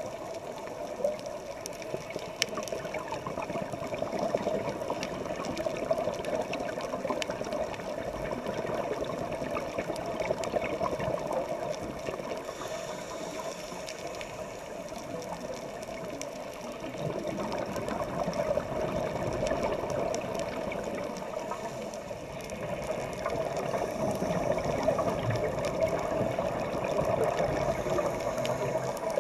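Underwater ambience picked up by a camera in a waterproof housing: a muffled, steady rush of water with many scattered crackling clicks, swelling and easing every several seconds.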